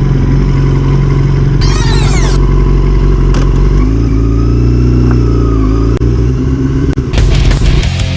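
Yamaha R6's inline-four engine running under way, its pitch dipping and then climbing again midway as the throttle changes. Near the end, heavy rock music with drums comes in.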